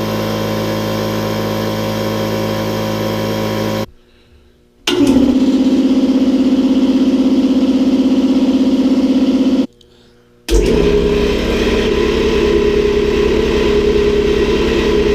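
Three air compressors run one after another: a 4-gallon single-cylinder Campbell Hausfeld, an 8-gallon maxAIR V-twin and a 60-gallon inline-twin Campbell Hausfeld. Each pump runs steadily for about five seconds and stops suddenly, with a short pause before the next starts up. The three are about equally loud.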